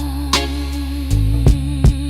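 Slow R&B/soul song in a passage without singing: a sustained bass, a held, gently wavering melody line and a slow drum beat with a few kick and snare hits.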